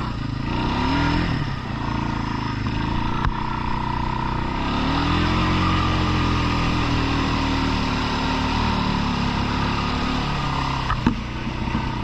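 Four-wheeler engine running under way, its pitch climbing and falling twice as the rider works the throttle. A few sharp knocks come near the end.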